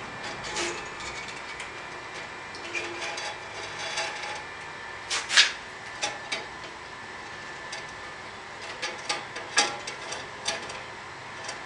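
Scattered clicks, knocks and scrapes of hands working a steel bandsaw blade onto the wheels of a vintage Craftsman bandsaw, the loudest a sharp clack about five seconds in. The blade won't go on because the saw's tension assembly is frozen.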